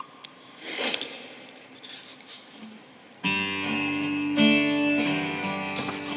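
A few faint rustles, then about three seconds in a guitar starts playing the song's opening chords, the notes ringing on.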